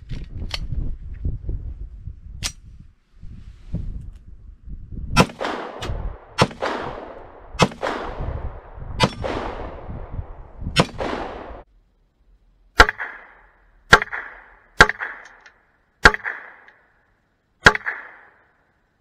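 Ten 9mm shots from a Taurus PT1911 pistol in two strings of five, each shot about a second or so after the last. Each of the last five is followed by a brief metallic ring.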